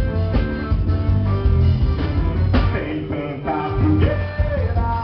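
Forró band music with a steady beat, pitched instruments and singing.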